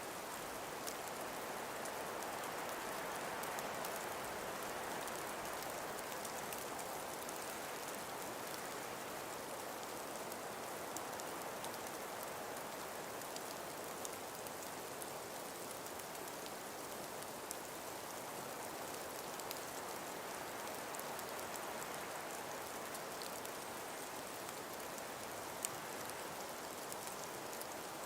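Calm winter breeze blowing through trees: a steady, even hiss with faint scattered ticks.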